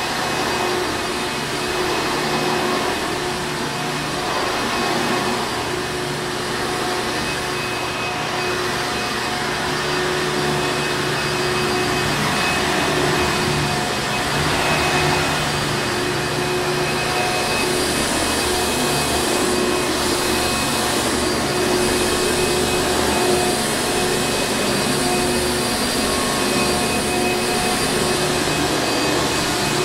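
Hoover Encore Supreme upright vacuum cleaner running steadily: a constant rushing motor noise with a steady whine.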